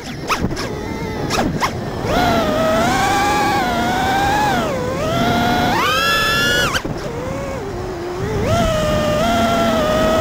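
FPV quadcopter's brushless motors whining, heard from the onboard camera, the pitch rising and falling with the throttle. A few sharp clicks come in the first two seconds while the motors are low. The whine then climbs and holds, dipping about five seconds in and again after about seven seconds before climbing again.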